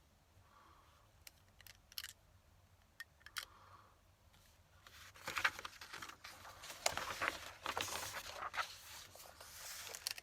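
A few light clicks, then from about halfway on a dense run of scratching and rustling on paper, as of paper being handled or written on.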